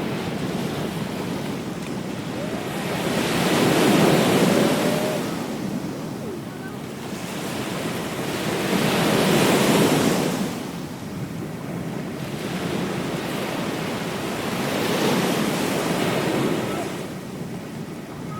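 Ocean waves washing onto a beach, the surf swelling and receding in slow surges, two stronger ones about four and ten seconds in, with some wind noise on the microphone.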